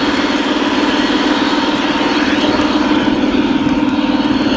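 Three-rail O gauge model train running along its track close to the microphone: the steady hum of its electric motor and wheels with a fast, even flutter.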